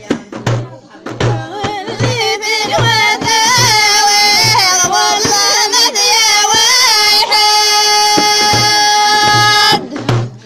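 Rif Amazigh folk music: a low drum beating steadily a little under twice a second under a loud, high melody full of slides and turns, which settles into one long, steady held note near the end.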